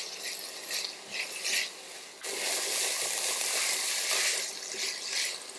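Mixed vegetables sizzling in hot oil in a pressure cooker while a silicone spatula stirs and scrapes them. About two seconds in, the sizzle gets louder and steadier.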